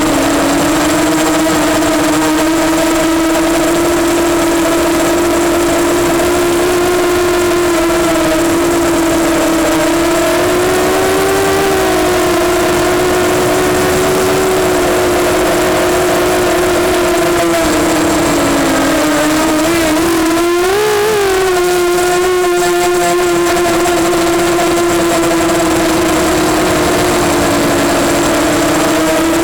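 EMax Nighthawk 250 quadcopter's motors and propellers whining in flight at a fairly steady pitch with small wobbles, over a steady hiss. The pitch dips briefly about eighteen seconds in, then jumps up and falls back a couple of seconds later as the throttle changes.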